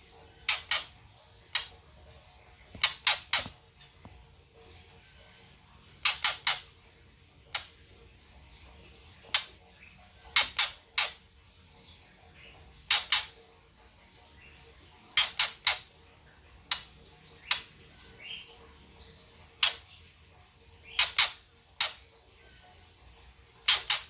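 White-rumped shama (murai batu) 'kretekan' call: sharp dry clicks, singly, in pairs or in threes, every second or few, the harsh clicking call used to provoke other murai into singing. A steady high thin tone runs underneath.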